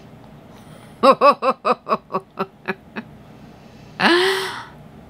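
A woman laughing: a run of about ten quick voiced 'ha' pulses that fade out over two seconds, then one short breathy gasp-like laugh about four seconds in.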